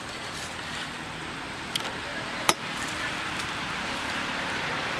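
Steady hiss of background noise, slowly growing a little louder, with two short sharp clicks: a faint one and then a louder one about two and a half seconds in.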